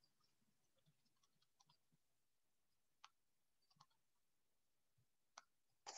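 Near silence with a few faint computer mouse clicks, a handful early on and single clicks about three, four and five and a half seconds in.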